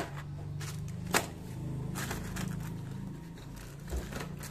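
Packaging being handled: paper and plastic rustling and crinkling, with a few sharp clicks and knocks, the loudest about a second in. A low steady hum runs underneath.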